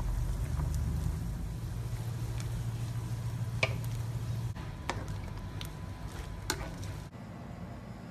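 Coconut-milk broth bubbling in a wok as it is stirred, with three sharp clicks of the utensil against the pan. A low hum underneath fades out about halfway through.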